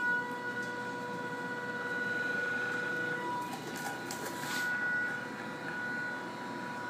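Reaction wheel's electric motor spinning its metal flywheel: a steady whine made of several high tones, some fading and returning as it runs. A brief hiss comes through about four seconds in.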